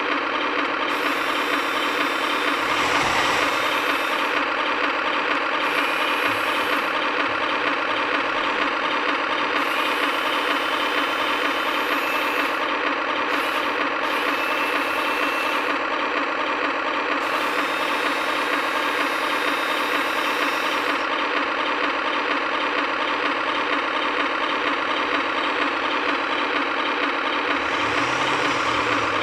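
Remote-control Tiger tank model running, a steady engine-like sound with a faint repeating pattern that carries on unbroken as the tank drives, heard close up from the tank itself.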